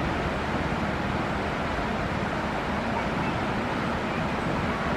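Excavator's diesel engine running steadily under an even rushing noise.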